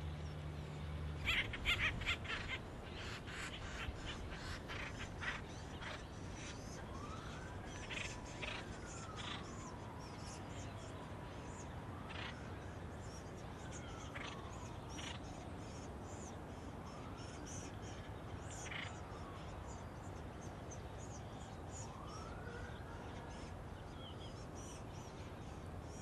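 Acorn woodpeckers giving harsh, rapid calls, loudest in a burst about two seconds in, then scattered calls. A distant emergency-vehicle siren wails faintly behind them in four slow rises and falls.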